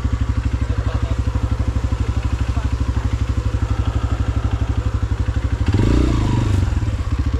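Dirt bike engine idling with a steady, even pulse, then revved once in a short throttle blip about two-thirds of the way in before settling back to idle.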